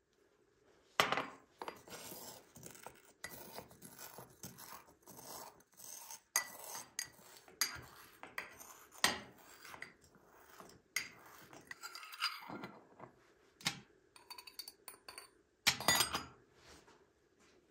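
Brass pestle grinding and tapping saffron threads in a small brass mortar: a run of irregular metallic clinks and scrapes. Near the end a metal spoon scrapes and clinks against the mortar.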